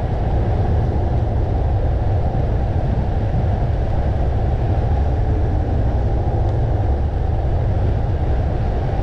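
Steady, loud wind buffeting on the microphone, heaviest in the low end, from a bicycle descending fast downhill at around 35 miles an hour.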